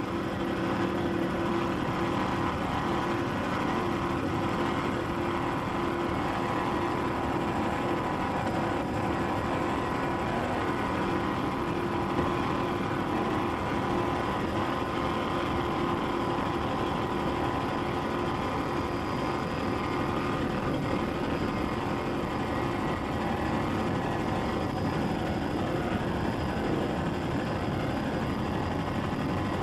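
Steady, unbroken engine drone with a constant pitch.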